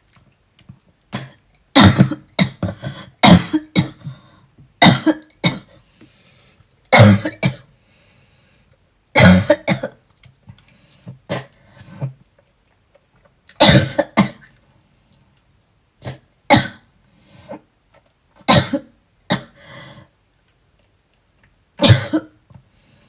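A person coughing hard and repeatedly, short harsh coughs coming in twos and threes every second or two without stopping: a persistent cough from a cold with asthma.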